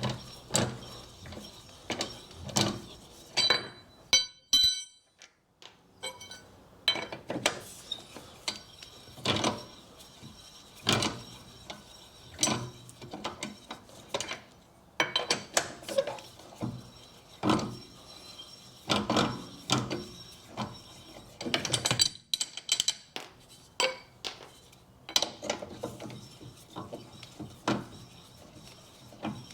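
Wheel brace and socket undoing a car's wheel bolts: irregular metallic clicks and clinks as the bolts are turned out and handled, with a quick run of ringing ticks about three to four seconds in.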